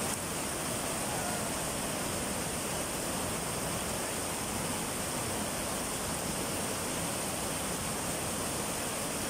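Waterfall cascade: shallow whitewater rushing steadily over a smooth rock slope.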